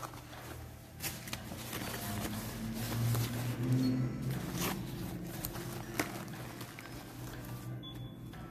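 Plastic packaging being handled on a table: rustling and crinkling with scattered small clicks, over a steady low hum.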